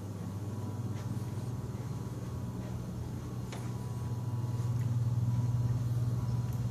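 A steady low hum, growing a little louder about four to five seconds in, with a couple of faint clicks.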